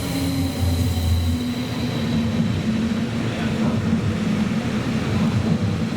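A train running past: a steady rumble with a humming tone, and a faint high whine that fades after about two seconds.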